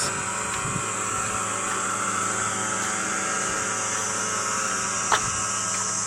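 Remote-control crop-spraying helicopter, a steady engine-and-rotor drone holding one pitch throughout, with a brief click about five seconds in.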